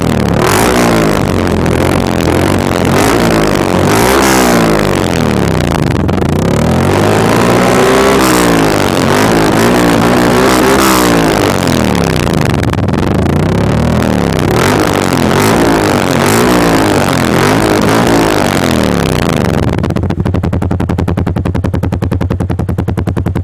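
Yamaha R15 V3's 155 cc single-cylinder engine revved again and again through an aftermarket exhaust, the revs rising and falling in repeated blips. It settles to a steady idle about 20 seconds in.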